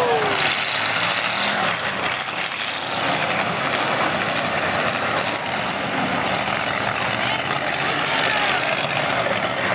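Demolition derby cars' engines running and revving together in a steady, dense din, with one engine's pitch falling right at the start.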